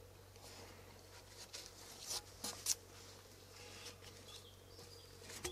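Faint knocks and scrapes of a long wooden beam being lifted and handled, with a few short sharp taps about two to three seconds in.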